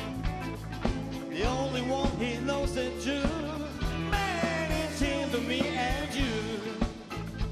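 Live rock band playing: guitars, bass and drum kit with a steady beat, and from about a second and a half in a lead line of bending, wavering notes over the top.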